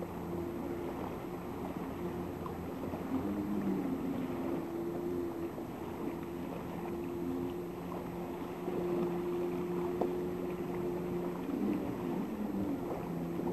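A steady low drone, wavering in pitch a few seconds in and again near the end, over wind and water noise.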